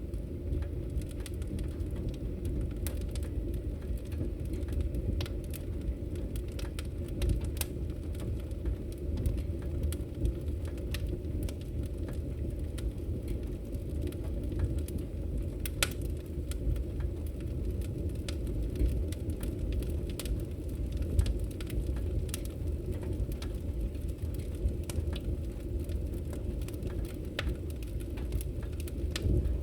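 Fireplace fire burning: irregular sharp crackles and pops over a steady low rumble of the flames.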